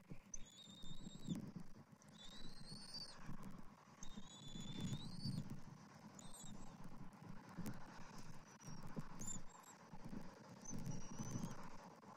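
Bald eagles on the nest giving thin, high whistled calls: three drawn-out, slightly rising calls of about a second each in the first half, then shorter, fainter notes. An uneven low rumble runs underneath.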